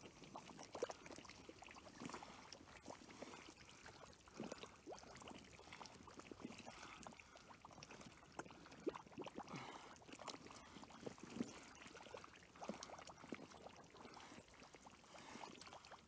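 Faint, irregular sloshing and trickling of water with small scattered splashes, as a person wades slowly through a shallow muddy pool in waders.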